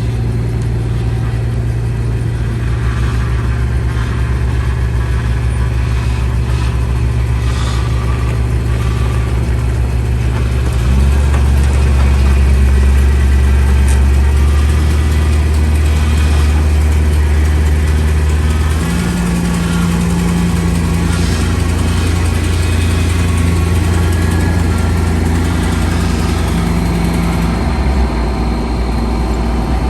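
Motor vehicle engine running steadily, its low note stepping to a different pitch three times: about a third of the way through, past the middle and near the end.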